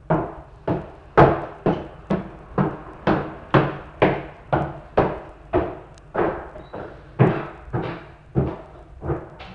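A steady series of heavy thuds, about two a second, each with a short echoing tail.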